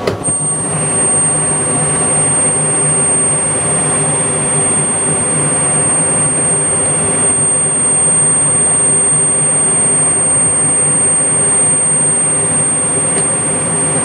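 Gas furnace burners lighting and burning, with a steady high-pitched whistle that starts just as they ignite and holds unchanged over the rushing of the flames and fans.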